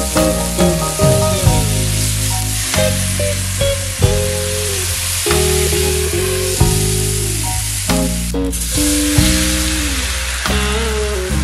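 Radish kimchi and pork sizzling as they are stir-fried in a wok with a wooden spatula, over background music with a bass line and melody. Near the end, a chive pancake frying in oil.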